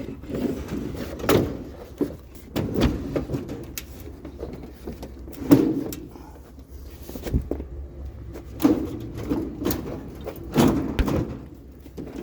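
A series of irregular knocks and clunks, several seconds apart, over a low steady rumble.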